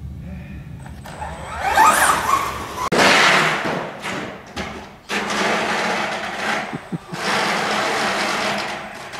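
4x4 RC short-course truck with a brushless electric motor being driven hard: the motor whines, rising and falling in pitch with the throttle, over a loud rushing hiss of drivetrain and tyres on artificial turf. The sound breaks off abruptly a few times and starts again.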